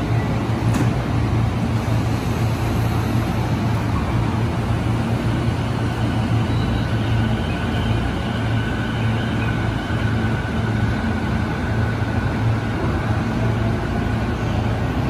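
JR East E233-5000 series electric commuter train pulling out of an underground station platform: a steady low rumble of wheels and motors, with a faint electric whine in the middle.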